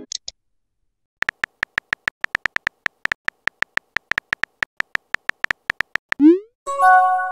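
Phone-keyboard typing sound effects from a texting-story animation: a short tick-like beep about five or six times a second as a message is typed. About six seconds in comes a quick rising whoosh as the message is sent, followed by a short chime.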